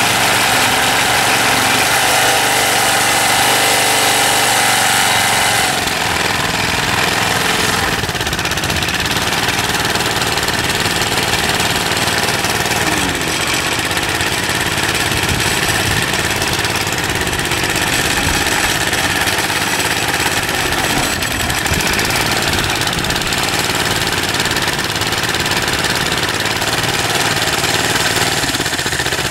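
Briggs & Stratton 3 HP single-cylinder engine running steadily after its carburetor rebuild; its speed and level drop a little about six seconds in, then it runs on evenly.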